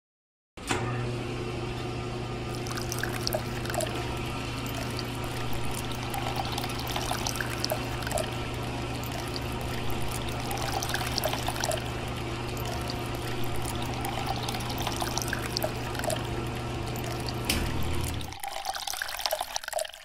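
A small electric water pump switched on about half a second in, humming steadily while a stream of water pours and splashes from its spout. Near the end the motor hum stops and only a short splash of water is left.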